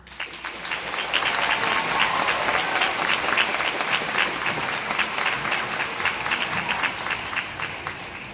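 Audience applauding at the end of a school band's piece. The clapping starts suddenly, fills out within about a second, then tapers off near the end.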